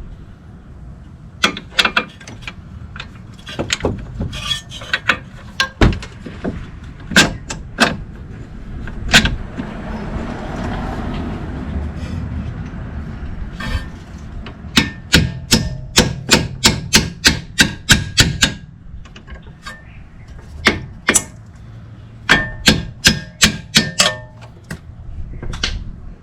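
Sharp metal taps and knocks as bolts are fitted through the new strut's lower mount into the steering knuckle, including two runs of quick, slightly ringing strikes about three a second, with a few seconds of metal scraping between them.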